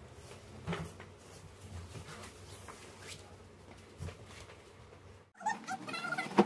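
Faint knocks and rustles of a large cardboard box being handled, spaced about a second apart. After a sudden break near the end, a louder stretch of short sounds begins.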